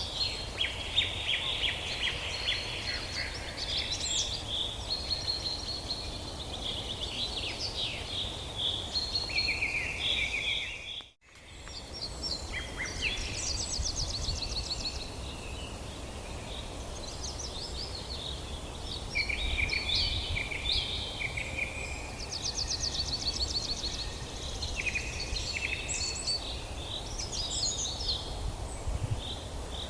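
Several birds singing and calling, with many overlapping chirps, trills and whistles over a steady low rumble. The sound drops out briefly about eleven seconds in, then resumes.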